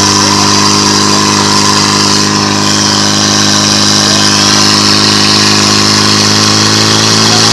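Portable fire pump engine running steadily and pumping water from the tank into the attack hoses.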